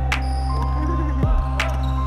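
Background music with a steady beat: held notes over a deep bass hit that drops in pitch about once a second, with a sharp crack between the bass hits.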